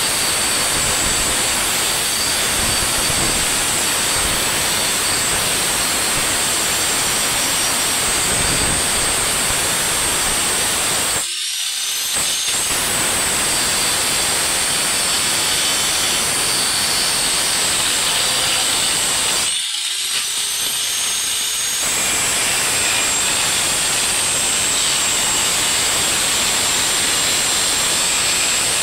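Handheld electric power tool running steadily with a high whine and harsh grinding noise. It is let off twice, about a third and two thirds of the way through, and each time its motor whines back up to speed.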